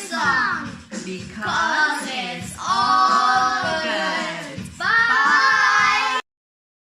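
A child and a woman singing a simple repeated song together, which cuts off abruptly about six seconds in.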